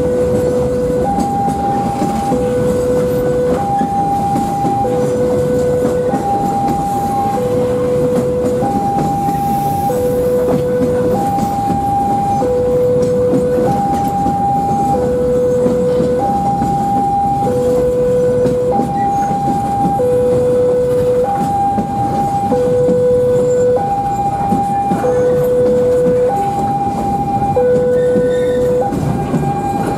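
Level-crossing warning alarm ringing steadily in two alternating tones, a higher and a lower one of about a second each, over the rumbling and rolling of an empty freight train of flatcars passing through the crossing.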